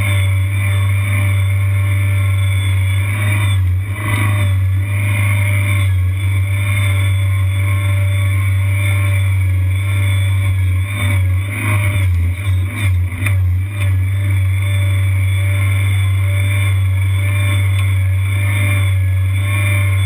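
Kanga Kid tracked mini skid steer's engine running steadily while the machine drives, a strong low hum with a few brief dips about two-thirds of the way through.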